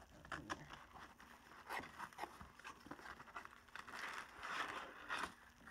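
A cardboard box and its paper packing being handled and rummaged through: scattered scrapes, crinkles and clicks, with a longer stretch of rustling about four seconds in.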